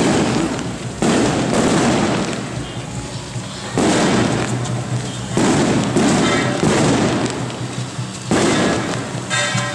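Strings of firecrackers going off again and again, each burst starting suddenly and fading away, over a steady low hum.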